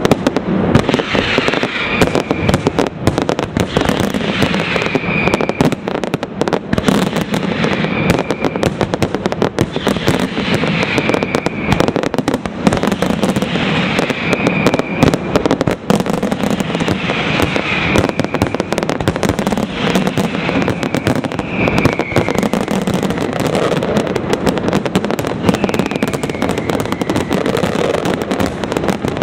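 Fireworks display: a continuous, dense barrage of bangs and crackles from aerial shells and candles firing in rapid succession.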